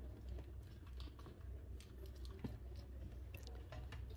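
Light clicks, taps and rustling of a cable and small plastic video baluns being handled, over a steady low hum.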